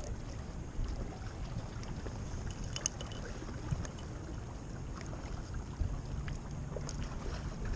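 Wind blowing on the microphone over choppy water lapping at a kayak's hull, with a few faint ticks.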